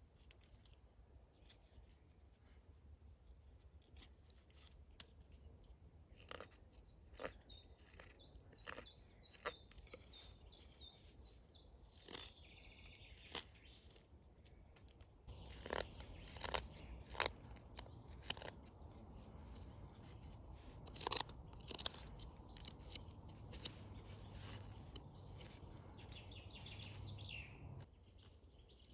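Songbirds singing short descending trills and chirps, with a scatter of sharp clicks and crunches that grow denser and louder in the second half. A low steady rumble comes in about halfway and stops shortly before the end.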